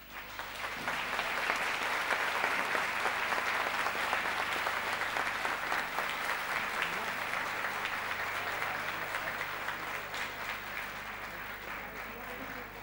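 Audience applauding: the clapping starts at once, is strongest over the first few seconds and slowly tapers off.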